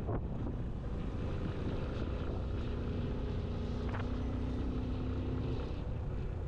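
Motorcycle engine running steadily while riding at about 45 km/h, with wind rumbling on the microphone.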